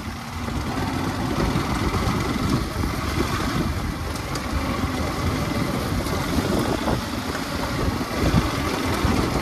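Motorcycle running while ridden over a rough gravel road: a steady engine rumble and road noise, with scattered small clicks and knocks.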